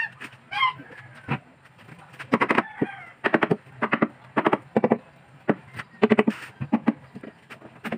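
Chickens clucking in clusters of short calls that come thick and fast through the middle and latter part, over a faint steady low hum.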